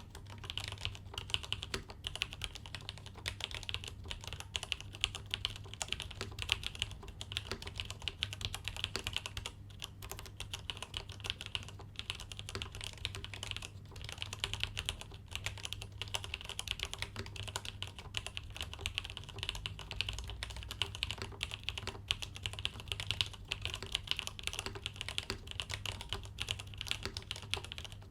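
Steady, fast typing on a mechanical keyboard with stock, unlubricated vintage Cherry MX Black linear switches (Cherry G80-3000 pulls), GMK keycaps on a RAMA KARA aluminium board: a dense, continuous stream of key clacks.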